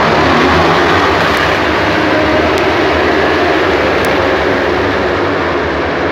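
A pack of Supersport 300 racing motorcycles accelerating away together from a race start, many small engines running at high revs at once in a dense, loud mix that fades slightly as the field pulls away.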